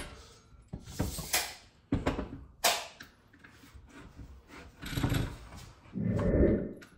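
Workshop handling noises as trike parts are held up and moved: several short knocks and scrapes in the first three seconds, then a duller, louder noise around five seconds in and again about six seconds in.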